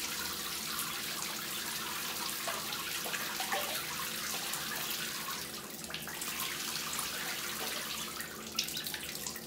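Shower water running steadily into the shallow water on a tiled shower floor.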